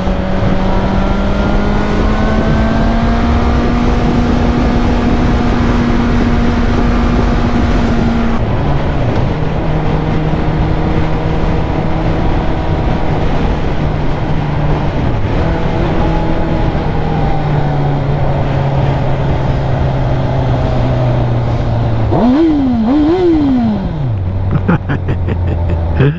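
Sport motorcycle engine running at highway speed under heavy wind rush. About eight seconds in the engine note drops as the bike slows. Near the end the revs rise and fall twice in quick blips as it downshifts, then settle to a low note as it slows toward a stop.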